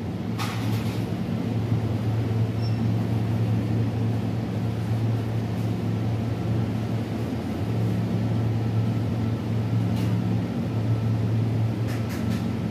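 Steady low mechanical hum: a droning note with a second, higher one, swelling and easing slightly, with a few faint clicks near the end.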